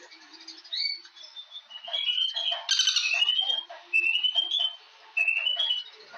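Birds calling: repeated short phrases of quick, rising chirps with brief gaps between them, and a louder, denser flurry of calls about three seconds in.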